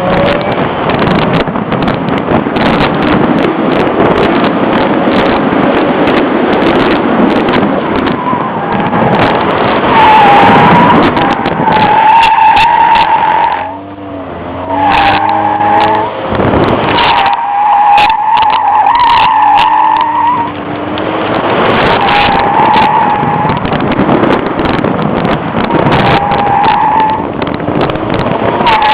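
Chevrolet Cavalier driven hard on an autocross course, its engine revving up and down between corners. From about a third of the way in, the tires squeal over and over in one-second bursts as the car is thrown through the turns and slalom.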